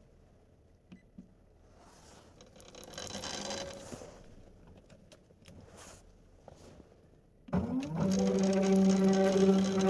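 Motorized SMD component counter starting up: its motor spins up with a short rising whine about three-quarters of the way through, then runs with a steady hum as it winds the component tape off the reel. Before that, a softer brief whir of the reel being handled.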